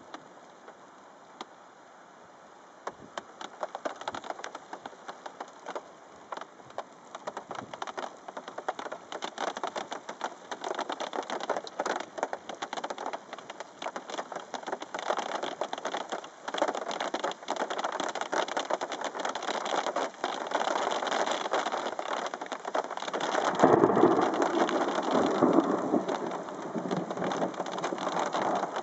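Rain falling on a car, individual drops ticking sharply and growing denser and louder as the shower builds. A louder, deeper rush of sound comes about three-quarters of the way through.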